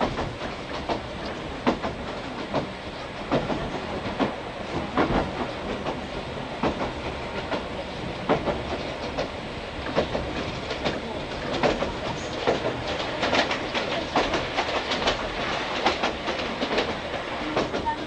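Interior of a JNR old-type passenger coach on the move: the wheels clack irregularly over rail joints above a steady running rumble.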